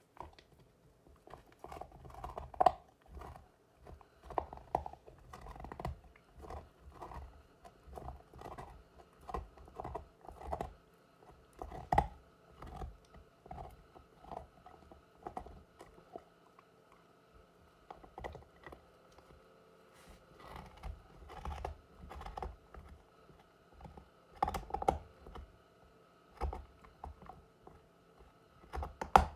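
An Alaskan malamute gnawing on a hard chew, its teeth making irregular crunches and clicks in clusters, with short pauses between bouts.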